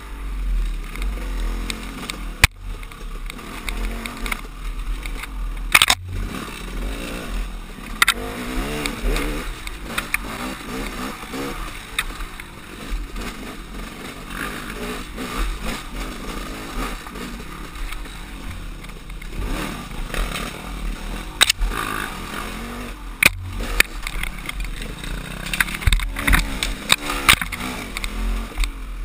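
KTM two-stroke enduro dirt bike engine running on a trail ride, its revs rising and falling with the throttle. A constant low rumble of wind on the helmet microphone runs under it, and there are a few sharp knocks from the bike hitting rough ground.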